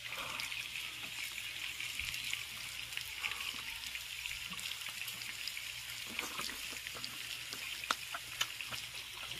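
Steady crackling sizzle of food cooking on a grill, with scattered small clicks over it.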